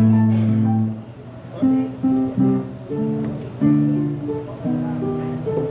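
Electronic keyboard played by hand: a string of chords with a melody on top, each chord held for about half a second.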